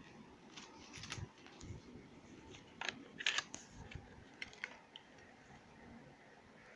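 Faint handling noise: soft rustles and a few light clicks and taps as a plush minion toy is moved about and touched close to the microphone.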